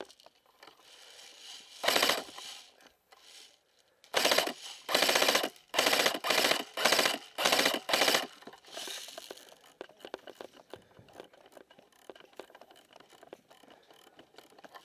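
Airsoft electric rifle firing full-auto: one short rattling burst about two seconds in, then a string of about seven bursts over the next four seconds. Quieter scuffing and shuffling follow.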